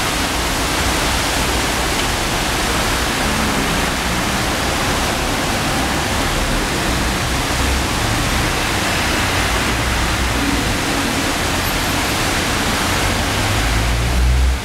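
Heavy rain pouring down: a loud, steady hiss, with a low rumble rising near the end.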